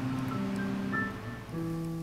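Solo piano music: a slow melody of held notes over soft lower chords.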